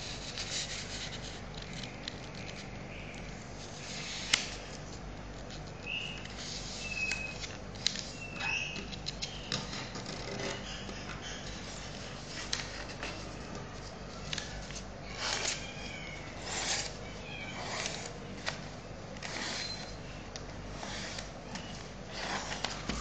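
A sheet of paper being handled and folded, rustling and crinkling, with sharp crackles and clicks as creases are pressed in.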